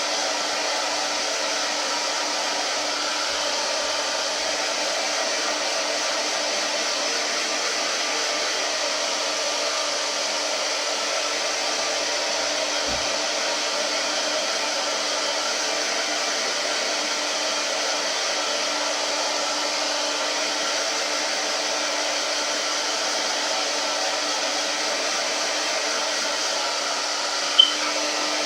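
Turbo Styler handheld blow dryer running steadily: a constant rush of air with a low hum underneath. A brief, sharp, high blip sounds near the end.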